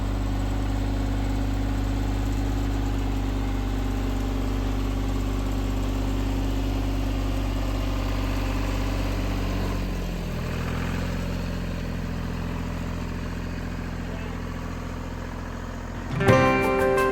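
An engine idling steadily, its note changing to a lower, weaker run about ten seconds in. Music starts near the end.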